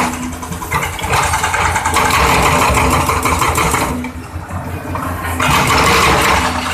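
Excavator's hydraulic breaker hammering rapidly on concrete over a running diesel engine. The hammering stops for about a second and a half in the middle, leaving only the engine, then starts again.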